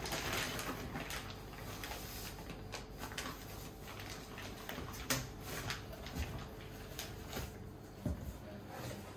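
Plastic wrapping around a boxed chair rustling and cardboard packaging being handled, with a few light knocks and clicks scattered through.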